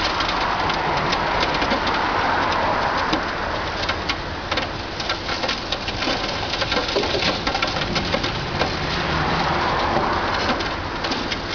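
High-reach Caterpillar demolition excavator's jaws crunching into a building's concrete wall edge, with many small crackles and clatters of falling rubble over the machine's steady running.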